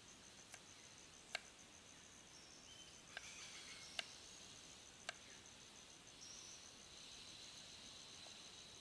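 Faint, widely spaced taps of a knife on a wooden cutting board while dicing garlic, about five sharp taps over the first five seconds. Behind it, insects keep up a faint steady high pulsing trill.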